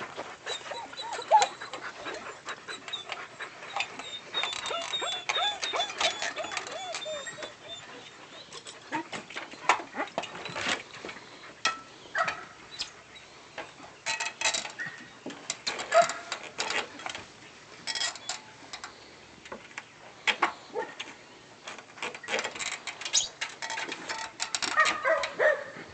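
German shepherd puppy whining in high wavering tones for the first several seconds and again near the end, amid many scattered knocks and scrapes of its paws and claws on the ladder rungs as it climbs.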